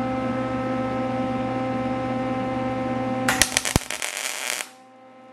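Welding arc on aluminium, crackling and spitting for about a second and a half, starting a little past halfway, over a steady electrical hum. Crackle and hum cut off together.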